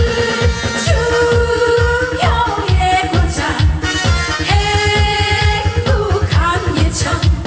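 A woman singing a pop song live into a handheld microphone, holding long notes, over amplified music with a fast, steady beat.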